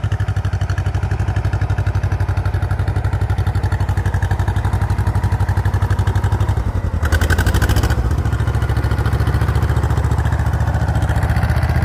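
Tractor engine running steadily under way, with an even pulsing beat. A short rush of louder clattering noise comes about seven seconds in.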